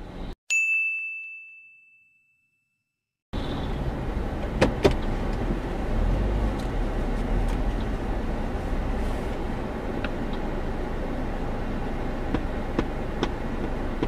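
A single bright ding that rings out for about a second and a half. After a short silence, the steady low rumble of a car moving slowly, picked up by a dashcam inside the car, starts about three seconds in, with a few sharp clicks.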